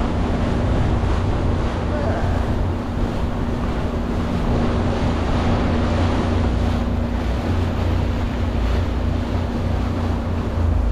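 A boat's engine running steadily with a constant hum, wind buffeting the microphone, and water rushing past.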